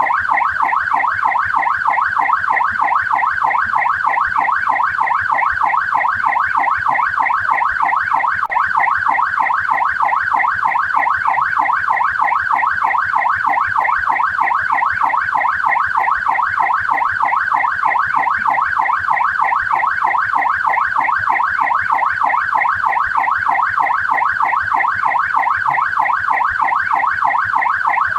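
Australian police car siren in its rapid yelp mode, its pitch sweeping up and down several times a second, steady and unbroken.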